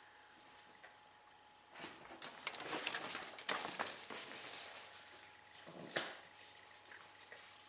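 Coton de Tulear dogs' claws scrabbling and clicking on a tiled floor as they run and play, a dense flurry of clicks and scuffles starting about two seconds in, with a last burst near the end.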